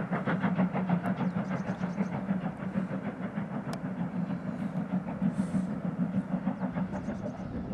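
Steam tank locomotive working hard as it hauls passenger coaches past, its exhaust chuffing in a quick, even rhythm over a steady low rumble of the train. The beats fade a little after a couple of seconds.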